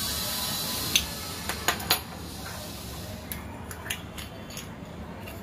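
A plastic modak mould being handled and set down on a counter: a few sharp clicks and taps about a second in, then lighter taps. A steady hiss runs under them and drops away about three seconds in.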